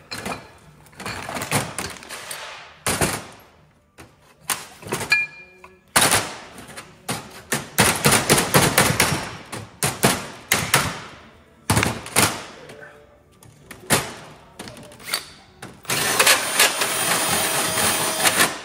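Impact wrench run in short hammering bursts with clunks in between, setting a stainless rivnut in sheet metal. The longest, densest bursts come about six seconds in and again near the end.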